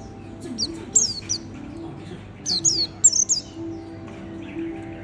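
A caged white-eye giving short, high, falling chirps in quick little clusters, over a faint steady low hum.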